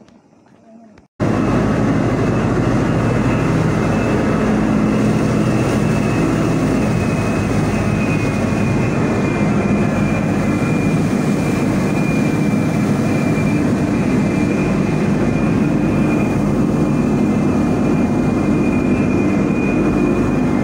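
About a second in, a loud steady drone of ship's machinery cuts in and holds: an even low hum with a steady high whine over it.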